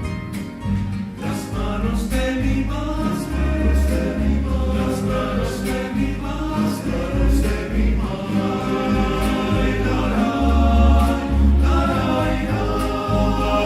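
Film soundtrack music: a choir singing sustained chords over a bass line, with a light regular beat.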